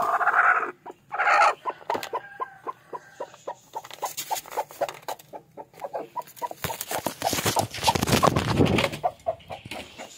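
Broody hen clucking, a quick steady run of short clucks, several a second. A rustling noise lasts about two seconds near the end.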